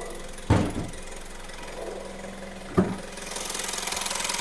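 VW 1.2 TSI EA111 four-cylinder engine idling with a stretched timing chain. Two clunks, about half a second and near three seconds in, from the bonnet being opened, after which the engine's fast, even chain rattle comes through louder.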